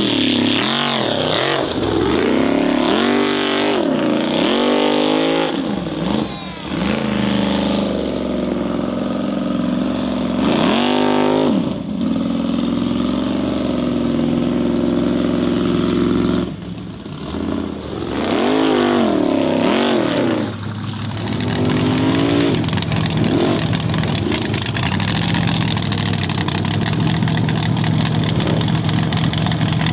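Formula Offroad buggy engine revving hard in repeated rising and falling surges, with brief drops off the throttle. In the last several seconds it settles into a steadier running note with a lot of noise.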